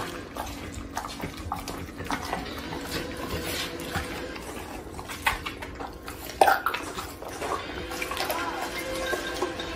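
Pit bull-type dog chewing raw chicken: wet smacking and licking with small crunching clicks, and one sharper crack about six and a half seconds in.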